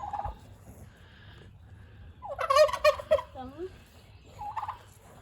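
Tom turkey gobbling: a brief call right at the start, a loud rapid rattling gobble about two seconds in, and a shorter call near the end.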